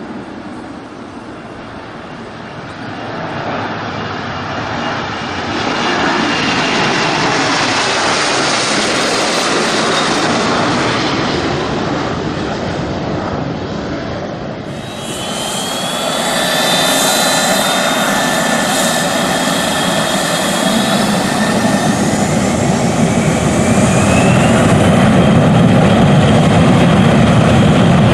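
Airliner turbine engines running loud, with a noisy roar swelling over several seconds. After an abrupt change about halfway through, rising whines sound as the engines spool up, and the low roar keeps building louder.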